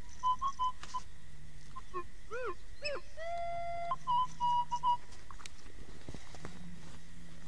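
Metal detector giving target signals as the coil sweeps over a buried item: several short, steady beeps of the same pitch in the first second, and again about four seconds in. In between come a few rising-and-falling whistle-like tones.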